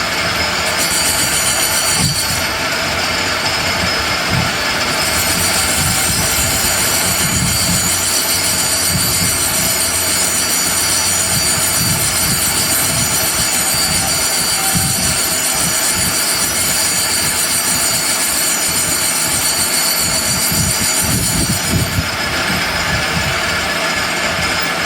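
Lathe machine running: steady loud machining noise with a high-pitched squealing whine that drops away for a few seconds near the start and fades again near the end.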